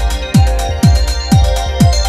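Background music with a steady deep beat, each beat dropping in pitch, about two beats a second.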